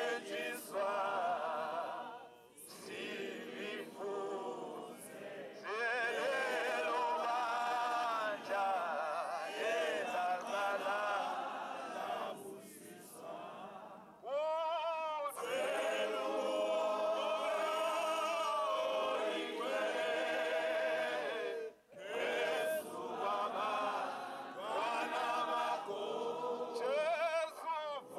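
A congregation singing a hymn, led by a man's voice through a megaphone, in long held phrases with a few short breaks between lines.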